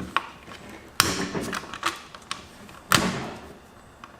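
Sharp plastic clicks and knocks of a laptop's casing and parts being handled while a cable to the display is worked free, about five in all, the loudest about a second in and again near three seconds.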